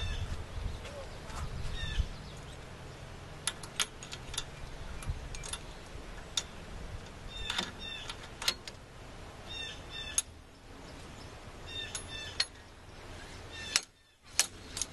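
Slide hammer being worked to pull the old bearing out of a Dana 35 axle tube: a series of sharp knocks at irregular intervals as the weight strikes its stop. Birds chirp in the background.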